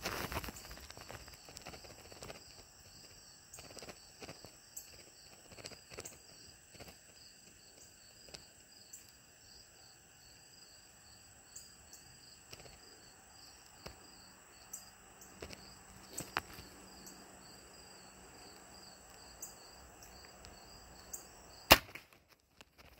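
TenPoint crossbow firing once near the end, a single sharp crack, the loudest sound of all. Before it, insects chirp in a steady pulsing rhythm, with faint scattered rustles and clicks.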